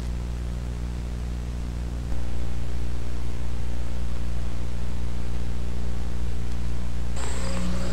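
A steady low droning hum with a layer of hiss, stepping up in loudness about two seconds in. A thin high tone and other faint sounds join near the end.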